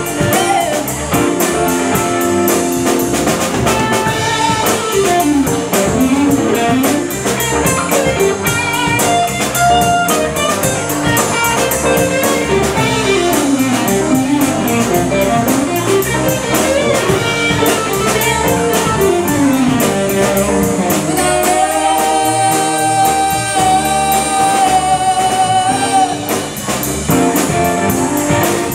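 Live band playing a rock song: electric guitars, bass, drum kit and keyboard, with a long held high note about two-thirds of the way through.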